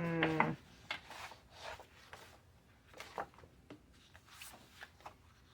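Sheets of paper rustling and sliding as they are handled and shuffled, in short irregular scrapes. A brief hummed "mm" at the very start is the loudest sound.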